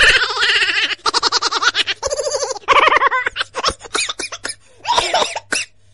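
A person laughing hard in repeated bursts of high-pitched giggling, with short breaks between the fits.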